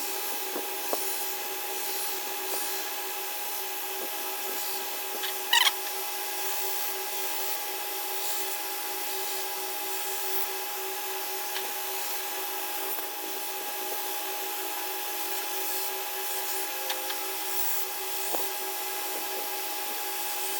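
Grizzly 2x42 variable-speed belt grinder running steadily with a steel knife blade being ground against the abrasive belt: a constant motor and belt hum with the rasp of metal on the belt. A brief sharper scrape comes about five and a half seconds in.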